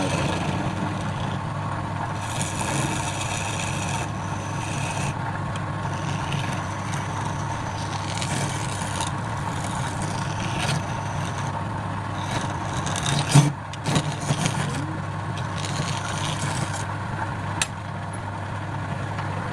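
Wood lathe running with a steady hum, while a turning tool cuts the spinning wood in hissing stretches of one to three seconds at a time; there is a sharp knock about 13 seconds in.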